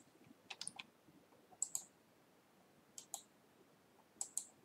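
Faint computer mouse clicking: four quick clusters of two or three button clicks, about a second apart.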